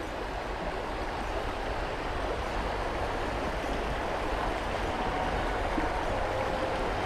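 Steady rushing noise of strong wind on the microphone, with a low buffeting rumble, growing slightly louder.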